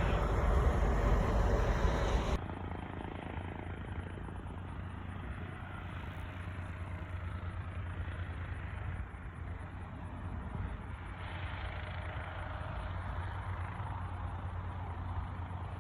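Small aircraft engine running. It is loud for about two seconds, then an abrupt cut drops it to a quieter, steady engine drone.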